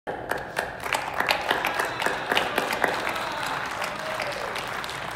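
Audience applauding, the separate claps thinning out over the last couple of seconds.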